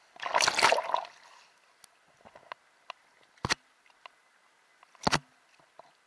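A small sea wave splashing over a camera held at the water's surface, followed by scattered water ticks and two sharp knocks against the camera, about three and a half and five seconds in.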